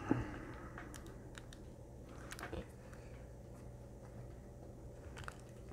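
A few light, scattered clicks and taps of small tools and parts being handled on an electronics workbench, over a low steady hum.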